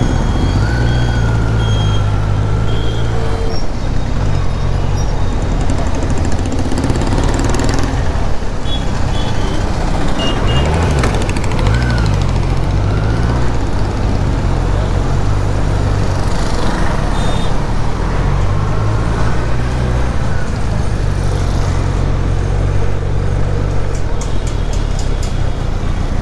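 Kawasaki Z900's inline-four engine running at low speed in town traffic. Its pitch rises and falls a few times around the middle as the throttle is opened and closed.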